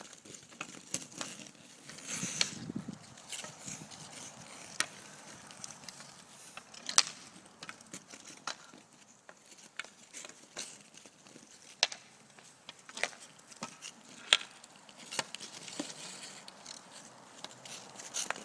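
Hockey stick blade tapping and clacking against pucks on ice during stickhandling: irregular sharp clicks, the loudest two about 7 and 14 seconds in, with a short scrape on the ice about two seconds in.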